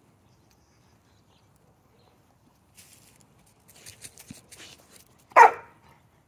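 A dog barks once, short and loud, about five seconds in, after a couple of seconds of faint scratchy rustling.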